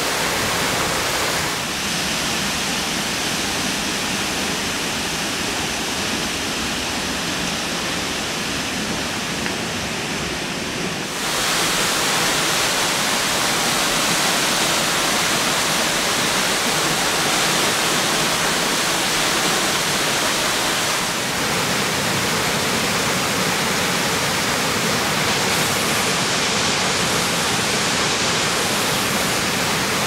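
Waterfalls pouring into plunge pools: a steady rush of falling water. It shifts in level and tone at cuts between falls, growing louder and brighter about eleven seconds in.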